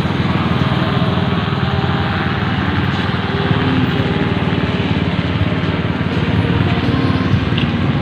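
Several motorcycle engines running together at idle and low speed, a steady mix of exhausts with no single engine standing out.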